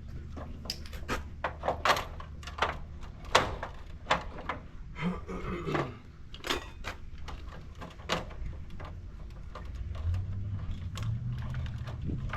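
A string of irregular clicks and knocks from hard objects being handled, with a low hum coming in near the end.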